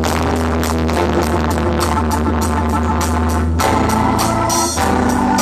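Loud dance music with heavy bass, a steady beat and an electronic keyboard melody.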